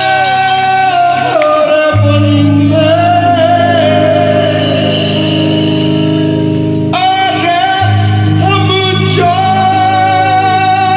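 Live band music with singing: long held vocal notes over a bass line that moves to new notes a few times.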